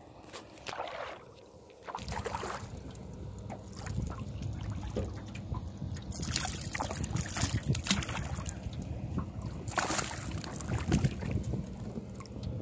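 Wind rumbling on the phone microphone while a hooked smallmouth bass thrashes and splashes at the water's surface, with louder bursts of splashing about six and again about ten seconds in.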